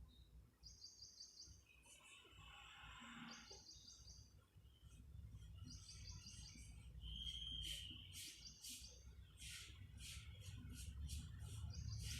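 Faint birds chirping and trilling over a low steady hum, with short repeated trills and one brief whistled note about seven seconds in.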